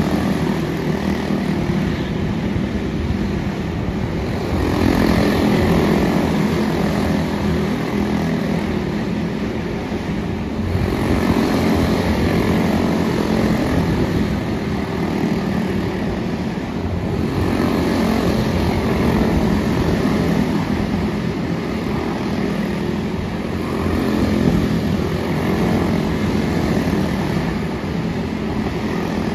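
Quarter midget race cars' single-cylinder Briggs & Stratton Animal engines running at racing speed, a continuous buzzing drone that swells and eases every several seconds.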